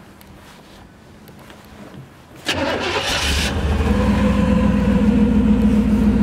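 1967 Chevrolet Camaro RS's 327 small-block V8, with headers and dual exhaust, starting about two and a half seconds in: it catches with a short burst, then settles into a steady idle.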